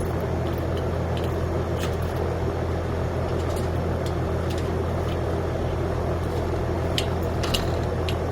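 Steady low mechanical hum running throughout, with a few faint light clicks about two seconds in and again near the end.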